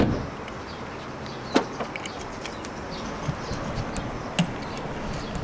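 A Volkswagen Polo's door shutting with a single thump at the start, followed by a steady outdoor background with scattered light clicks and faint bird chirps.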